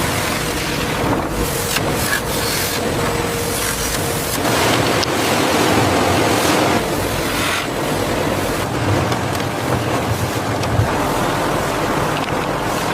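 Steady rushing din of factory machinery, with a faint hum that stops about four seconds in and scattered small clicks.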